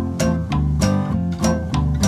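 Background music led by a plucked guitar with low bass notes, on a steady beat.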